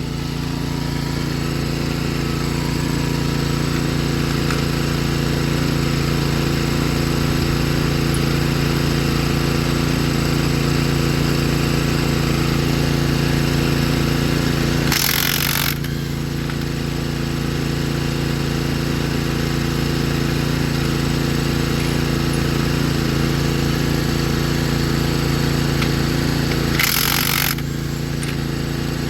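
An engine running steadily, with two short bursts of hiss, one about halfway through and one near the end.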